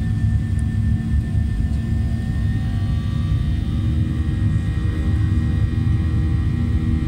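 Airliner cabin noise in flight: a steady low rumble of engines and airflow, with a few faint steady whining tones above it.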